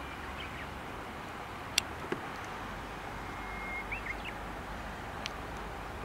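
Steady outdoor background hiss and low rumble, with a few faint high chirps from a small bird: a brief call near the start, then a held thin note and short rising chirps around the middle. Three sharp little clicks stand out, two close together about two seconds in and one near the end. The pheasants themselves do not call.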